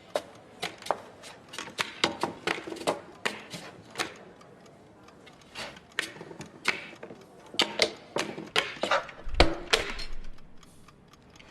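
An irregular run of sharp clicks and knocks, a few a second, with a dull thump about nine seconds in: foley sound effects being made by hand.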